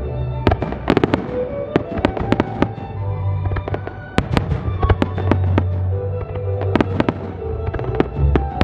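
Fireworks barrage of aerial shells bursting in rapid succession, several sharp bangs a second throughout, with music playing underneath.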